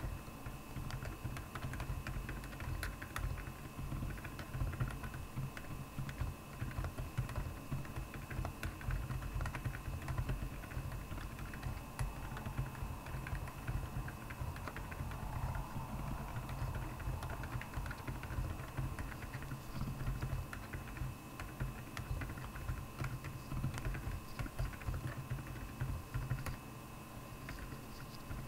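Continuous typing on a Royal Kludge R75 mechanical keyboard with Akko Penguin silent tactile switches: a rapid, unbroken stream of key presses.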